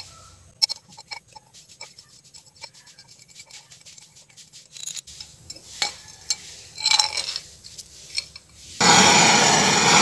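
Light clinks and taps of a glass beaker being handled and set down over a crucible. About nine seconds in, a gas torch flame comes on suddenly with a loud steady hiss for melting the gold powder.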